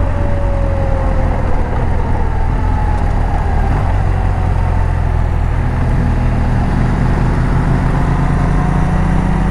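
Motorcycle engine running while riding, over a steady deep rumble; the engine note climbs a little in the second half.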